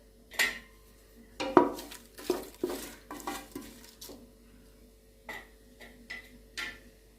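A spoon stirring and scraping inside a metal pressure cooker, giving irregular clinks against the pot, closest together about a second and a half to three and a half seconds in.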